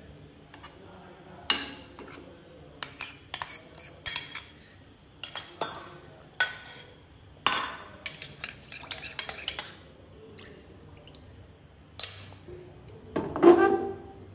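Kitchen utensils and an aluminium cooking pot clinking and knocking in a string of irregular sharp clicks. Near the end comes a louder, duller knocking as the pot is gripped by its handles and shifted on the gas-stove grate.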